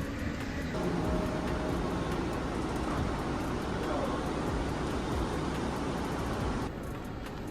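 Steady vehicle and road noise with a low rumble, thinning out near the end.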